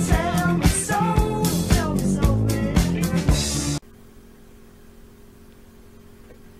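Intro music with a drum beat and a singing voice, cutting off abruptly a little more than halfway through. After the cut there is only faint room tone with a steady low hum.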